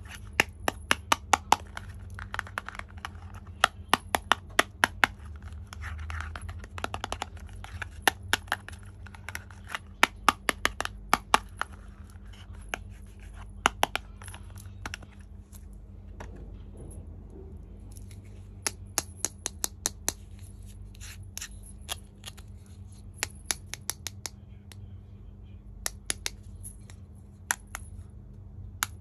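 Sharp clicks and taps of small plastic toy kitchen pieces being handled, coming in quick runs of several a second with short pauses between them.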